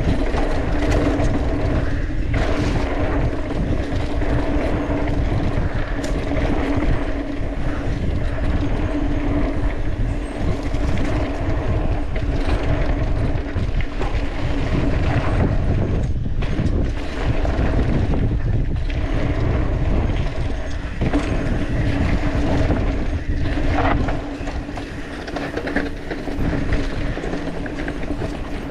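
Mountain bike riding down a dirt trail: a continuous rumble of knobby tyres on dirt, the bike rattling over bumps, and wind on the microphone, with a steady hum under it.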